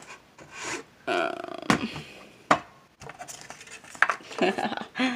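Hand-handling noise among objects on a shelf of energy drink cans: rubbing and rustling, with two sharp knocks a little under a second apart, busier toward the end as a paper note is reached for.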